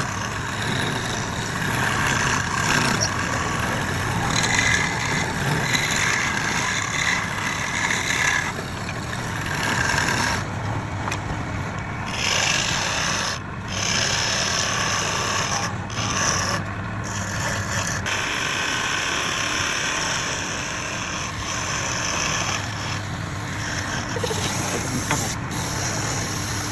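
Wood lathe running with a turning tool scraping and cutting into spinning palm wood: a continuous rasping noise over a steady motor hum. The scraping breaks off briefly several times around the middle.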